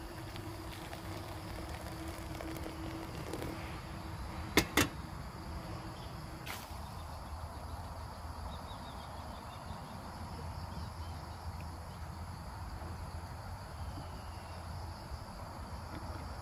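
Insects chirring steadily in the evening. Two sharp clicks come in quick succession about four and a half seconds in, and a fainter click follows about two seconds later.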